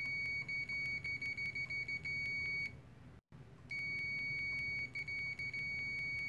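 UNI-T UT123 multimeter's continuity beeper sounding a steady high-pitched beep with its test probes shorted together. It breaks up into short on-off chatter as probe contact flickers, stops for about a second, then sounds again almost unbroken.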